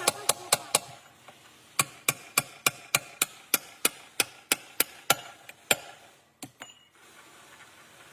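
Hammer tapping repeatedly: a few quick sharp knocks, then a steady run of about fourteen taps at roughly three a second that stops a little before the end.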